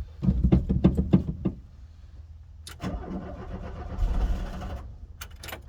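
A VW T25 van's engine being cranked by the starter without catching, in two bursts: a louder one about a second long, then a quieter one a second and a half later. The engine does not start because the van is out of fuel.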